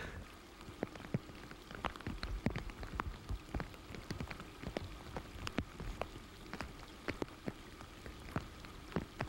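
Rain falling, with many sharp drop hits close to the microphone, several a second at irregular spacing, over a low rumble.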